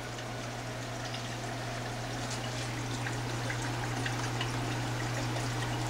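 Aquarium filtration water trickling and splashing steadily, with a constant low hum underneath.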